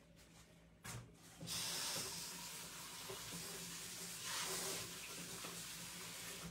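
Kitchen tap running, water spraying over canned chickpeas as they are rinsed in the sink. The water comes on about a second and a half in after a brief knock, and swells for a moment past the middle.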